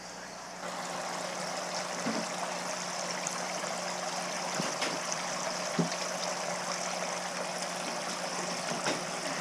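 Water running and trickling steadily in a live-shrimp bait tank, with a low steady hum underneath and a few faint ticks.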